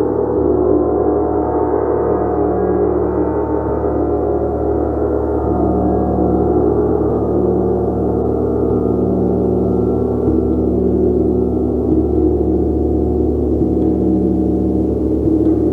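Gong kept sounding steadily, a dense, sustained wash of many overlapping low tones with no break or decay.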